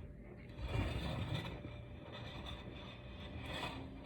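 Faint handling noise: light rustling and scraping, strongest about a second in and again near the end.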